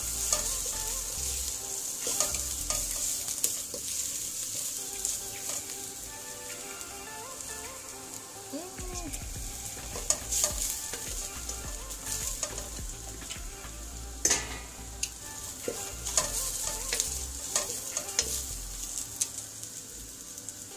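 Omena (small dried fish) sizzling as they fry in oil in a metal pot, stirred with a wooden spoon. The spoon scrapes and knocks against the pot again and again over a steady sizzle, with one louder knock a little past the middle.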